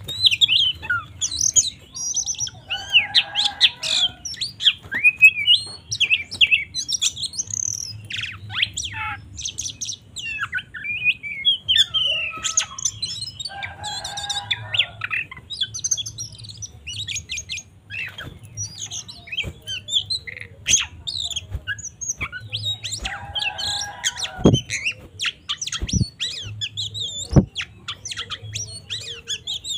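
Oriental magpie-robin (kacer) singing a fast, varied song of high chirps and whistles in its aggressive 'fighting' (tarung/ngobra) style. The song is broken three times by a harsh, rasping call.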